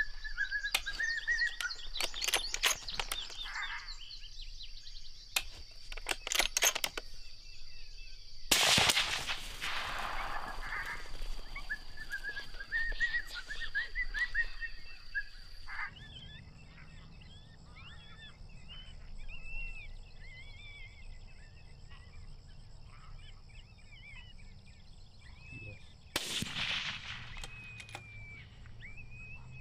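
Two rifle shots, one about eight seconds in and one near the end, each a sharp crack fading over about a second. A scatter of sharp clicks comes in the first seven seconds, and birds chirp throughout.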